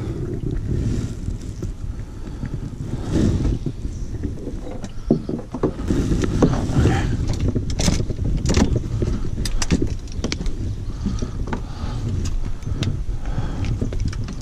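Fishing rods and reels being handled in a plastic sit-on-top kayak, with scattered clicks and knocks against the hull over a steady low rumble.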